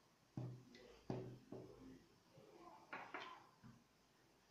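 Faint clacks and knocks of a 3D-printed plastic snake skull model being handled, its jointed jaw and skull pieces knocking together and against the wooden table; about five short knocks.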